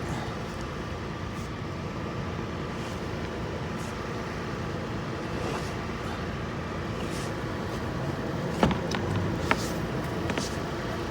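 Steady noise of a car running, with a few short sharp clicks or knocks late on, the loudest of them the loudest sound here.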